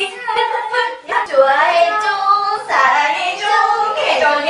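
Women's voices singing a short, playful phrase together, mixed with a little speech.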